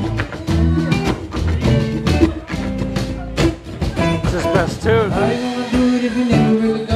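Live band playing Latin-style music, with quickly strummed guitar and a singing voice.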